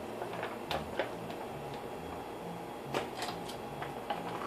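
A few faint clicks and light taps of objects being handled, scattered over quiet room noise.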